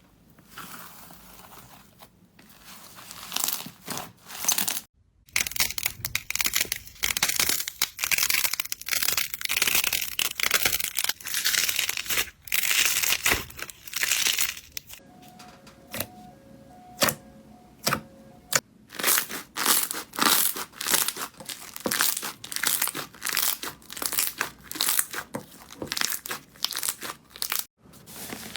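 Slime being squeezed, poked and stretched by hand, giving dense runs of sticky crackling and popping, in several short segments with abrupt changes. A quieter stretch in the middle holds only a few sharp pops.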